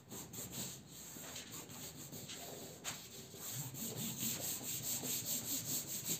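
A hand rubbing back and forth over cardboard, pressing a glue-coated cardboard panel onto black poster board so the glue takes. Quick repeated friction strokes, coming faster and more evenly in the second half, with a single sharp click about three seconds in.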